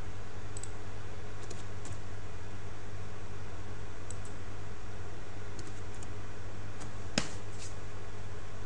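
Scattered computer keyboard keystrokes and mouse clicks, about ten in all, the loudest about 7 seconds in, over a steady low hum and hiss from the recording microphone.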